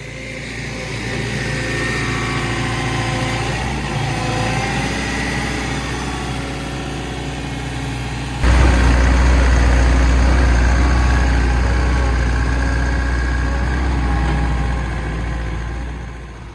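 Develon 140 excavator's diesel engine running, its revs rising over the first couple of seconds, then a sudden step to a louder, heavier sound about eight seconds in. The engine is being run to trace an intermittent helicopter-like noise and vibration that the mechanic cannot pin down.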